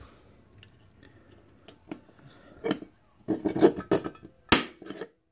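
Automatic center punch pressed onto a metal shroud, firing with one sharp snap near the end as its spring-loaded hammer dents the marked hole position as a start point for drilling. Lighter clicks and taps of the punch tip and the metal part being handled come before it.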